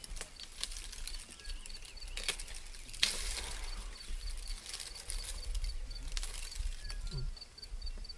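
African elephant browsing in a thorny acacia bush: branches rustling and cracking as its trunk pulls and strips them, in irregular sharp snaps, the loudest about three seconds in. A high insect call ticks evenly, about four times a second, throughout.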